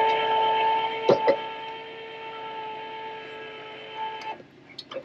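A travel trailer's electric tongue jack motor runs with a steady whine as it raises the tongue. There are two knocks about a second in, the whine gets quieter soon after, and it stops shortly before the end.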